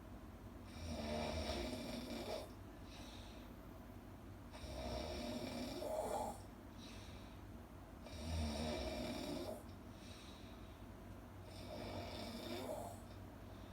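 Loud snoring: four long snores, each lasting a second and a half to two seconds, coming at an even rhythm about three and a half seconds apart.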